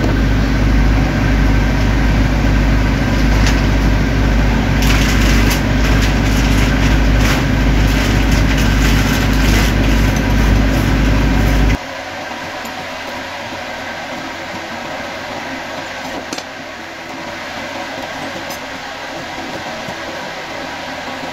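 A loud, steady low mechanical hum, with short clicks and rustles of cardboard as a die grinder is handled and packed into its box. About halfway through the hum cuts off abruptly, leaving a quieter background noise with occasional handling clicks.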